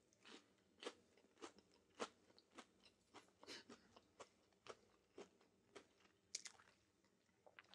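Faint, crisp crunches of a person chewing a crunchy breaded plant-based chicken nugget, about two a second.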